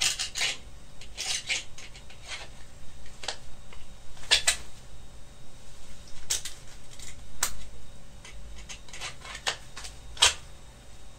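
Small Bastinelli Spade knife being drawn from and pushed back into its sheath in a front trouser pocket: irregular sharp clicks and short scrapes of blade and sheath, with cloth rustling.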